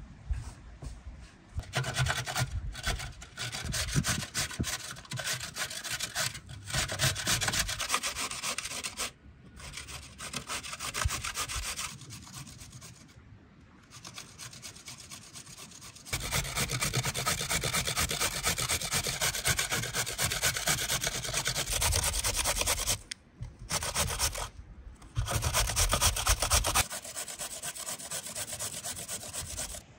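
Fast, rhythmic rasping strokes in several bouts separated by short pauses, the sound of something being scraped, grated or sawn by hand.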